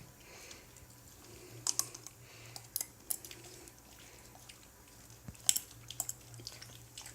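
Golden retriever licking and smacking peanut butter: scattered wet clicks from its mouth and tongue, several in quick pairs, with short pauses between.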